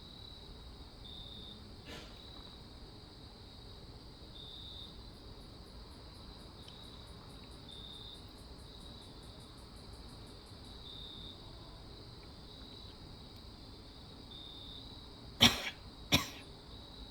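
Crickets chirping in a steady, even rhythm, with a faster insect trill for a few seconds in the middle. Near the end, two short, sharp, loud noises come about a second apart.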